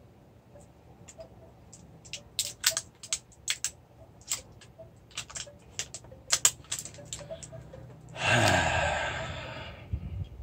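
Irregular sharp clicks and crackles from handling a small hot sauce bottle and its seal, then a loud breathy exhale about eight seconds in that fades over roughly two seconds.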